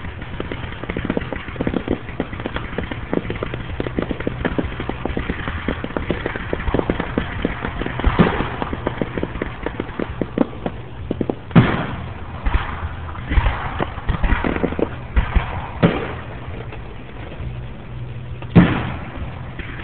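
Fireworks going off: dense rapid crackling for about the first half, then a string of separate louder bangs a second or two apart, the loudest one near the end.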